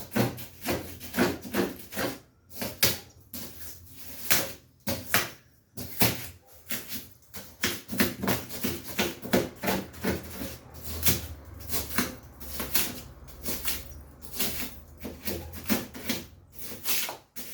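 Rapid, irregular clicks, scrapes and crackles of hand work on the back of a refrigerator as the capillary tube is dug out and traced, with a low hum in the middle of the stretch.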